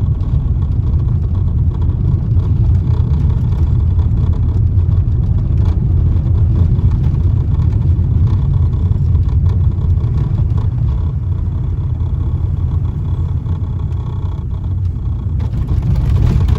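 Car on the move: a steady low rumble of engine and tyre noise on the road.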